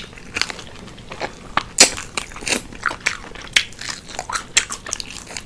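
Crispy fried chicken wings crunching as they are bitten and chewed: a run of sharp, irregular crunches, the loudest a little under two seconds in.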